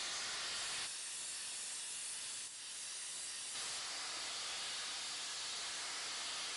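Steady hiss of background noise with no clear tone or rhythm. It drops a little about a second in and comes back up a few seconds later.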